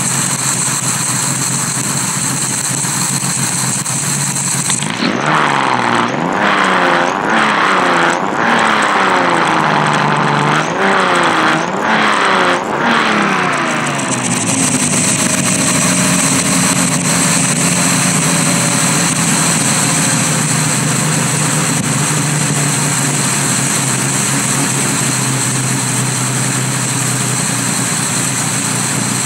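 Nissan L-series straight-six with a home-made crossflow cylinder head, breathing through six Keihin FCR carburettors with open velocity stacks. It idles, then is blipped by hand several times from about five seconds in, the revs rising and falling for about ten seconds before it settles back to a steady idle.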